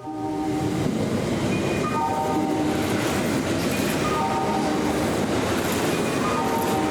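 Kintetsu commuter train running through the station: a loud, steady rumble of wheels on rail that cuts in suddenly at the start, with short steady tones at a few pitches recurring every couple of seconds.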